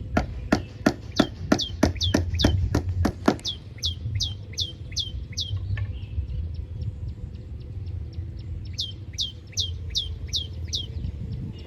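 Pratincoles calling: a series of sharp, downward-slurred calls, about three a second, in two runs with a pause of a few seconds between them. Sharp clicks, about four a second, come with the first run over a low rumble.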